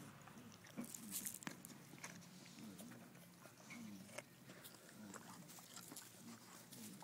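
Rottweiler chewing an apple: a few sharp crunches about a second in, then quieter chewing. Low pitched sounds from the dog that dip and rise repeat about once a second.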